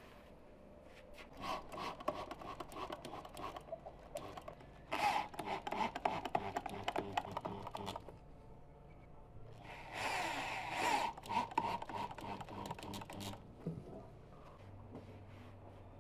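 Cordless drill-driver driving screws into a chair's upholstered backrest, running in three spells of a few seconds each, the last the loudest and brightest.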